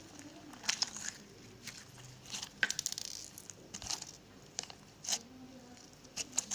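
Hands squeezing and stretching homemade slime, giving irregular sticky clicks and small pops.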